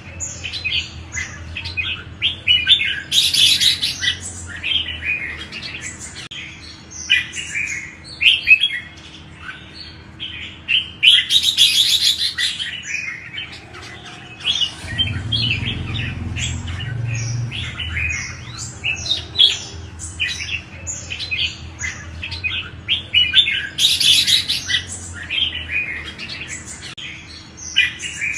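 Red-whiskered bulbuls singing, a steady stream of quick chirps and warbled phrases, with denser, louder outbursts about 3, 11 and 24 seconds in.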